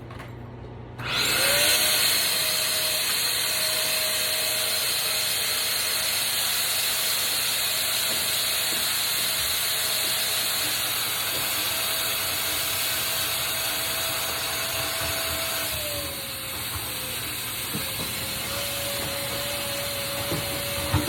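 Vacuum cleaner switched on about a second in, its motor running steadily as it sucks standing water out of a dishwasher that won't drain. About three-quarters of the way through the motor's pitch sags briefly, then steadies again.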